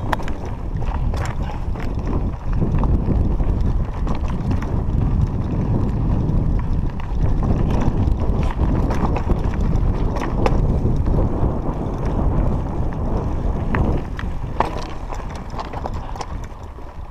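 Raleigh MXR DS 29er mountain bike ridden over a rough, stony dirt track: a steady rumble of tyres and rattling bike, with scattered clicks and knocks as it hits stones, and wind on the microphone.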